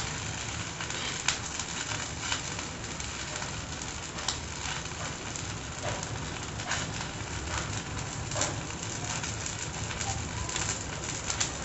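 Oil sizzling steadily with scattered small crackles and pops as corn-and-wheat-flour patties shallow-fry in a pan on a low flame.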